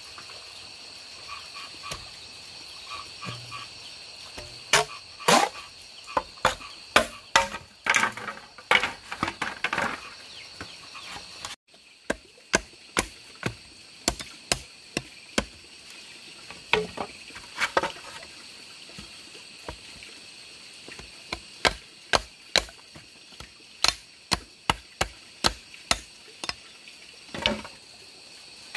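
Repeated sharp blows of a hand tool on bamboo, coming in irregular runs, with a short break near the middle. Behind them runs a steady, high-pitched wildlife chorus.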